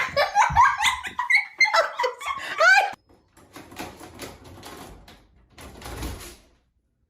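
A dog whining and yelping in short rising cries for about three seconds, followed by a few seconds of light clicking and tapping.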